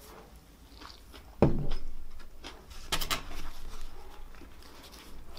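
Handling sounds as a burger is picked up off a wooden board and turned over in the hands, with a low thump about one and a half seconds in and a brief crackle about three seconds in.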